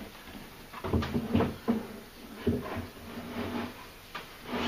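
Irregular clunks and knocks of a hospital bed footboard being handled and slid down over the bed's existing footboard onto the frame.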